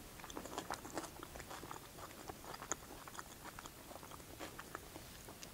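Close-mic chewing of soft burrito meat, with many small wet mouth clicks. Light clicks and scrapes come from a knife and fork cutting into a burrito in a styrofoam box.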